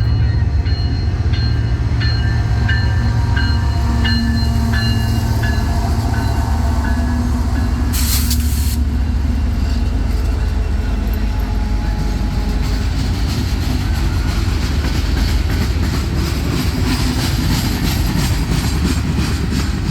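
Train running with a steady low rumble, a brief hiss about eight seconds in, and a rhythmic clack of wheels over rail joints growing in the last few seconds.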